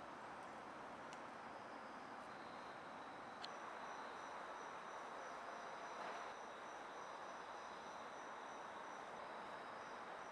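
Faint outdoor background: a steady hiss of distant traffic, with thin, high, steady insect trills coming in about two seconds in.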